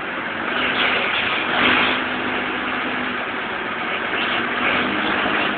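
Forklift engine running steadily at low revs, with a faint steady hum.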